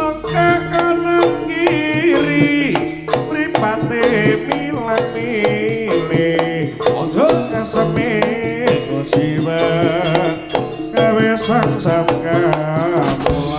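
Live jaranan sentherewe music from a Javanese ensemble: kendang hand drums beating a busy rhythm under gongs, with a wavering, quivering high melody line on top.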